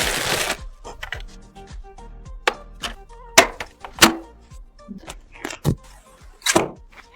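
Sharp clicks and knocks of computer parts being handled and snapped into place, about six separate strokes a second or so apart after a short rustling burst at the start, over background music.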